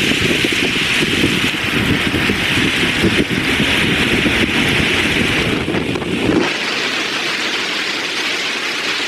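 2021 Toyota Corolla driving on the road on a test drive, with wind rumbling on the microphone. About six seconds in the low rumble cuts off suddenly, leaving a softer, steady hiss.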